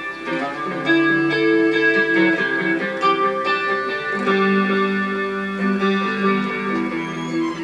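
Electric guitar playing plucked notes that ring and sustain, several notes overlapping.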